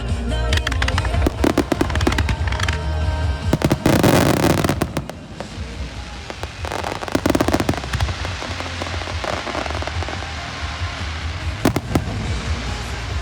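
Fireworks barrage with shells bursting in quick succession and crackling, over music played on loudspeakers. The crackle is densest and loudest about four seconds in.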